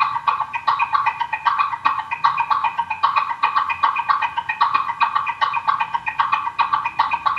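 Rhythmic bird-like chirping: short pitched chirps repeating evenly about three times a second, steady throughout.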